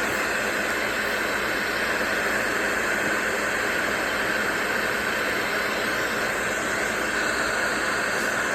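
Rain setting of a white-noise sound machine playing through its small speaker: a steady, even hiss.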